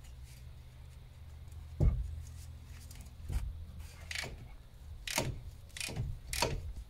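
Metal hand tools clinking and knocking against the car's suspension parts as bolts are worked loose: a heavier knock about two seconds in, then a run of sharp clicks in the second half.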